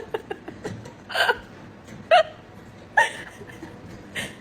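Four short hiccup-like vocal sounds, about a second apart.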